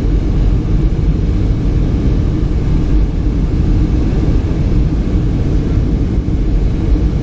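Jet airliner in flight heard from inside the cabin: a steady low rumble of the turbofan engines and airflow, with no change in pitch.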